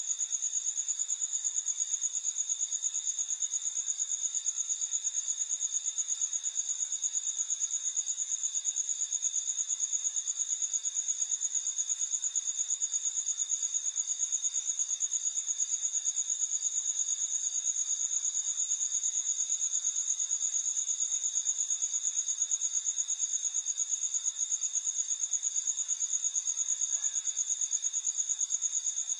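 Cricket chirping in a steady, fast-pulsing high trill that goes on unchanged.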